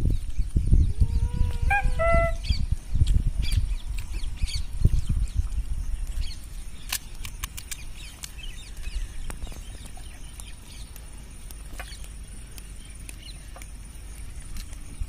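A chicken gives one short clucking call about a second in, over a low wind rumble on the microphone. Later come light, crisp cracks as puris are broken open by hand.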